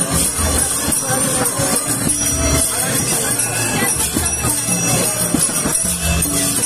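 Traditional festival music for the masked street dance: steady jingling of bells over a drum beating about once a second.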